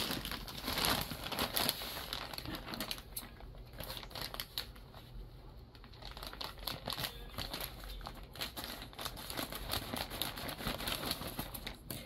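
White plastic poly mailer bag crinkling and rustling in irregular crackles as hands handle it and work it open, quieter for a few seconds in the middle.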